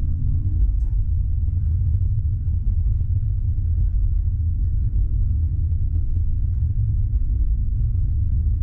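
Tram running along the track, heard from inside the driver's cab: a steady low rumble with a faint motor hum above it.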